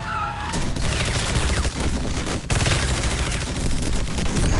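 Rapid automatic gunfire with bullets striking a vehicle and its side window glass. Dense shots start about half a second in and run on, with a brief break about halfway.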